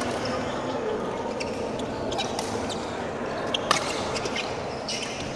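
Badminton rally: a run of sharp racket hits on the shuttlecock, irregularly spaced, with the loudest smack a little after the middle.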